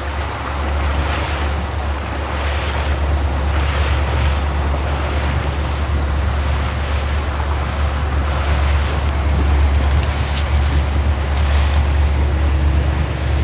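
Motorboat under way: a steady low engine hum under wind buffeting the microphone and water splashing against the hull.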